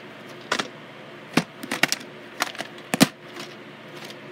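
Plastic VHS clamshell case being handled and opened: a string of about six sharp plastic clicks and knocks, the loudest a little after three seconds in.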